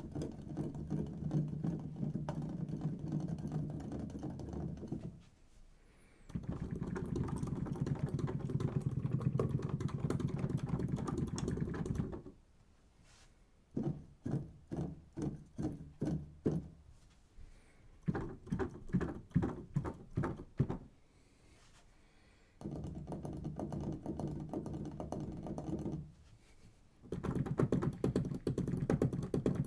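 Key action noise of weighted keyboards, the Fatar action of a Studiologic SL-880 and a Casio Celviano digital piano, keys clacking and thudding in runs: a D major scale, then staccato chords in short separate strokes about three a second, then fast repeated notes. The playing comes in several bursts with short pauses between them.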